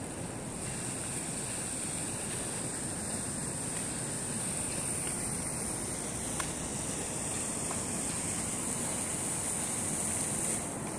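Steady outdoor background noise with a continuous high-pitched insect trill over it, which cuts off abruptly near the end.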